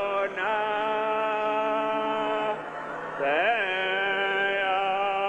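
A man singing in a slow chant, holding long drawn-out notes of about two seconds each, with a quick swoop up and down in pitch about three and a half seconds in.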